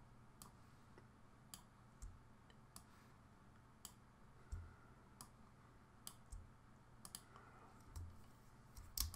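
Faint, scattered clicks of a computer mouse and keyboard, about one a second at irregular intervals, over near-silent room tone.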